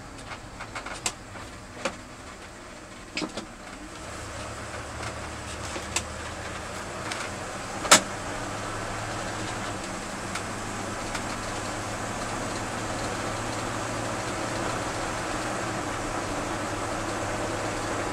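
Inside the cab of a 1979 Ford F-250 pulling away from a stop and driving on: a few sharp clicks at first, then a steady engine drone from about four seconds in, with road noise growing louder as the truck gathers speed. A single sharp clack about eight seconds in is the loudest sound.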